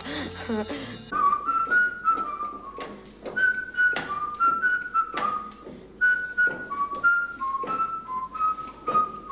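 A person whistling a tune, held notes stepping up and down between pitches, over sharp knocks that come about twice a second.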